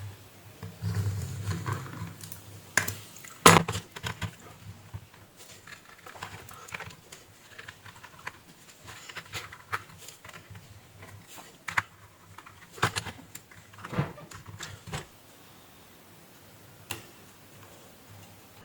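Irregular small clicks and taps of tools and small parts being handled on a workbench, with one sharper click about three and a half seconds in.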